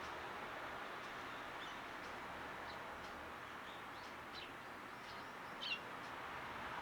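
Small garden birds giving a few scattered short, high chirps that slide downward, the loudest one near the end, over a steady background hiss.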